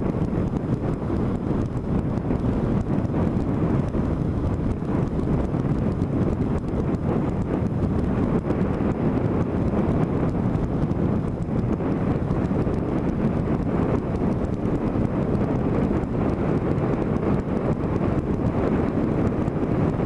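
Steady wind rush on the microphone of a motorcycle moving at road speed, mixed with the bike's running.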